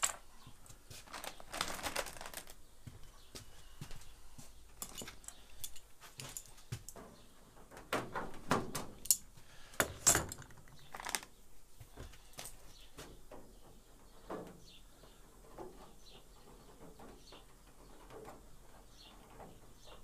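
Scattered light metallic clinks and clatter of sheet-metal tools being handled, with a louder cluster of sharp clicks about eight to ten seconds in, then fainter ticks.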